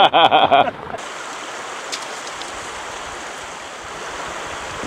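Steady rush of a river's flowing water, a man's voice trailing off just before it in the first second.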